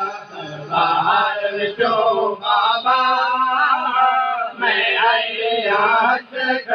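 Male voice chanting a noha, a Shia lament, unaccompanied, in long wavering drawn-out phrases with short breaks between them.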